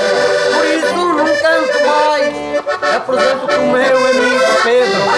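Accordion playing a folk tune while a man sings verses over it, a traditional sung exchange between a singer and the winner.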